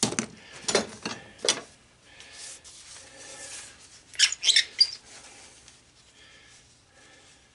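Copper tubing with a brass fitting handled on a workbench: a few sharp metallic clinks, a soft scraping as the fitting is worked along the tube, then another quick cluster of clinks about four seconds in.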